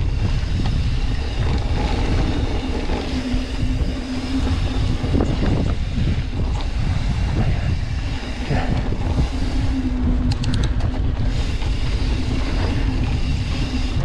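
Wind rushing over the microphone and the rumble of a mountain bike rolling over a dirt trail, with a short run of light ticks about ten seconds in.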